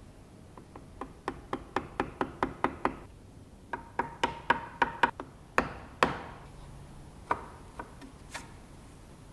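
Bench chisel being tapped down into oak to square the rounded end of a routed slot: quick runs of sharp knocks, about four a second, then two heavier strikes and a few scattered knocks as the cut is pared.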